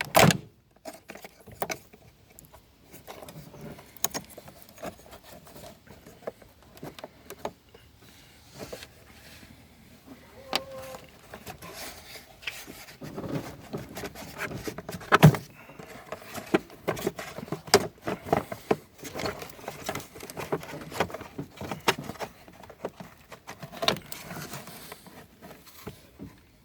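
Metal hand tools clinking, knocking and rattling in an irregular run of small clicks, as a spanner works the car battery's terminal clamps to disconnect it. A loud knock comes just after the start and another about fifteen seconds in.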